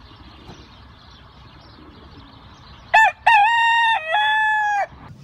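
A rooster crows once, about three seconds in: a cock-a-doodle-doo lasting about two seconds, with a short first note and then longer held notes. Before it there is only a faint outdoor background.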